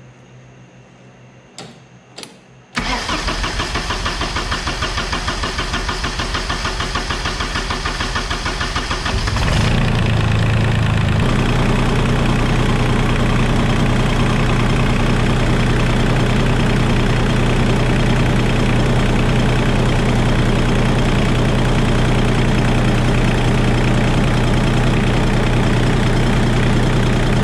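Terex PT-30 track loader's three-cylinder diesel engine, freshly fitted with rebuilt injectors and hand-primed, cranking on the starter in an even pulsing rhythm for about seven seconds. It then catches and settles into a steady idle with no fuel knock. A couple of small clicks come before the cranking.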